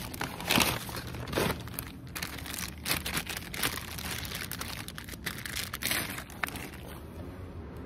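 Paper mailer and clear plastic bag crinkling and rustling in the hands as a package is unwrapped, in many short irregular crackles.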